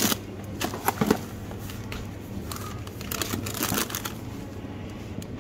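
Grocery packs being handled in a wire shopping trolley: plastic and cardboard packaging crinkling, with a few sharp knocks at the start and about a second in, and a busier patch of rustling around three to four seconds in. A steady low hum runs underneath.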